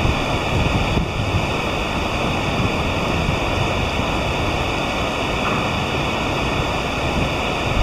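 Steady rushing of river water, with wind rumbling on the microphone.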